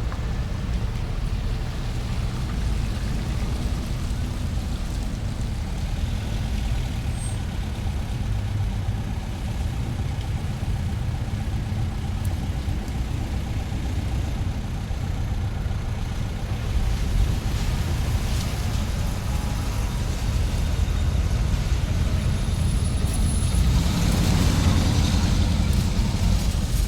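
Shopping-centre car park ambience: a steady low rumble of car engines and traffic with scattered light rattles and clicks. It swells louder near the end.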